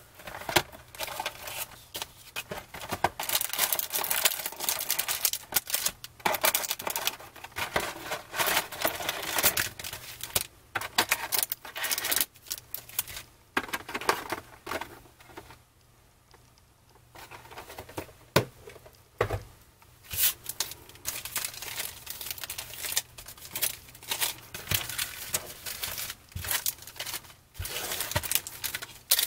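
Foil trading-card packs crinkling and a cardboard card box being handled and opened, with irregular tearing and rustling of packaging. There is a quieter lull about halfway through.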